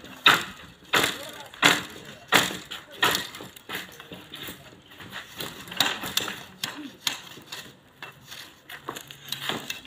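A knife worked along a long strip of bamboo, splitting and shaving it. It gives a series of sharp scraping, cracking strokes, about one every 0.7 s at first, then softer and more irregular.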